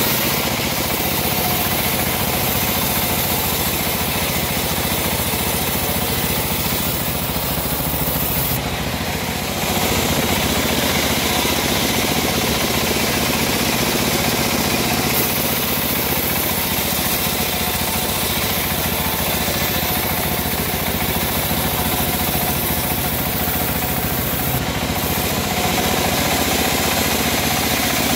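Homemade bandsaw mill running steadily as its band blade cuts lengthwise through an old teak log.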